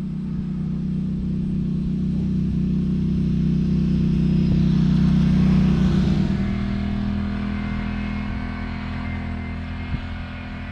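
A motor vehicle's engine passing by, its steady note growing louder to a peak about five or six seconds in and then fading off.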